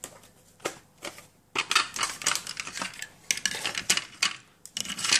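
Small hard objects clicking and clattering in quick irregular succession as a gel paint tube and a palette are handled, most of it from about a second and a half in.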